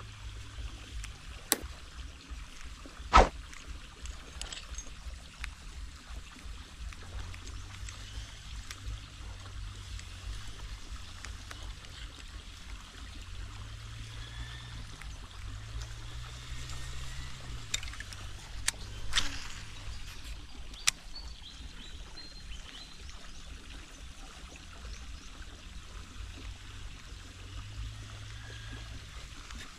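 Water pouring and trickling from a pipe into a canal, a steady low rumble underneath, and a few sharp clicks, the loudest about three seconds in and several more around twenty seconds in.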